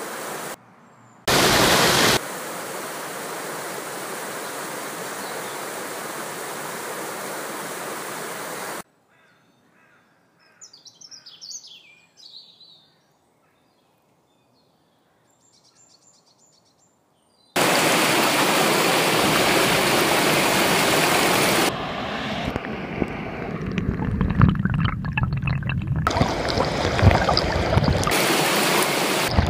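Flowing water rushing steadily, cut abruptly between clips: a long even rush, then several seconds of near silence with a few faint chirps, then a louder, rougher rush with low rumbles over the last several seconds.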